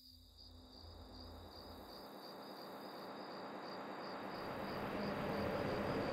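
Crickets chirping in a steady pulsing trill, under a broad rushing noise that swells steadily louder throughout.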